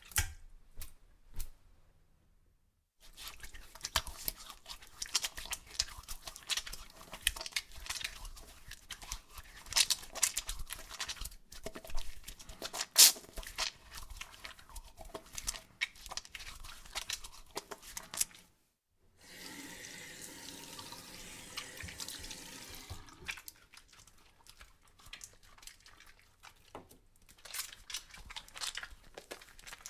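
Hands being washed at a sink: wet, soapy hands rubbed together in dense, quick crackling squelches. Partway through they give way to about four seconds of steady running tap water, and then sparser rubbing follows.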